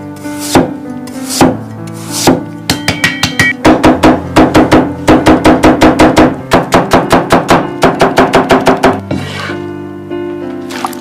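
Chinese cleaver cutting a peeled potato on a wooden chopping board. First come a few slow slicing strokes about a second apart, then a fast run of chops at about five a second as the slices are cut into fine shreds, stopping near the end. Background music plays underneath.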